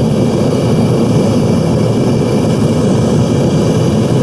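Propane-fired Devil Forge melting furnace running: a loud, steady burner roar under its blower.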